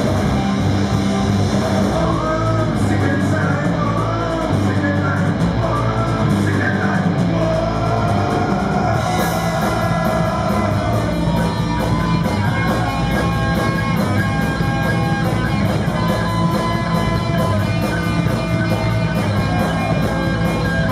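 Live rock band playing loudly: electric guitars and a drum kit, with a singer's voice over them for a few seconds near the start.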